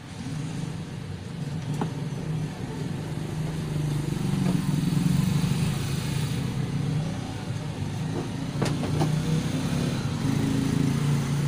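A vehicle engine running steadily, a low drone that grows louder over the first few seconds and then holds, with a few faint clicks.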